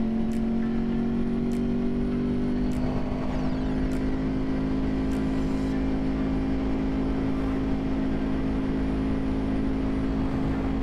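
Yamaha R1's inline-four engine running at steady revs on the move. Its note rises slightly about three seconds in and then holds.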